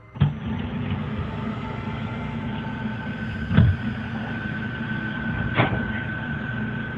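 Security camera's own audio: a steady hum and hiss with a faint high whine, starting on a click. Two knocks come about two seconds apart, one about halfway through and one near the end, typical of kitchen cupboard doors banging shut.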